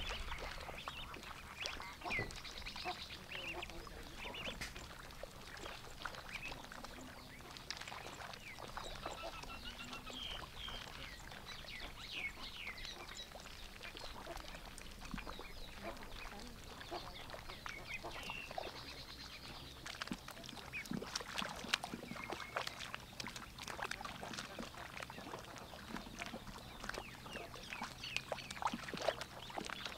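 Domestic ducks quacking now and then while foraging, their bills dabbling and clicking in shallow muddy water.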